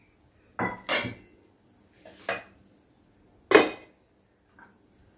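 Kitchen utensils clattering: four sharp clinks and knocks, the loudest about three and a half seconds in, with a faint one near the end.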